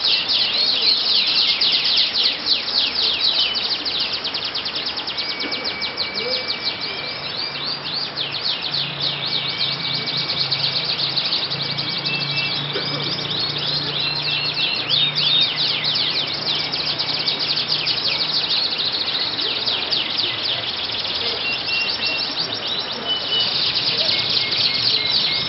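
Several domestic canaries singing at once in long, fast runs of chirps and trills, with short held whistled notes mixed in. A low hum runs underneath for several seconds through the middle.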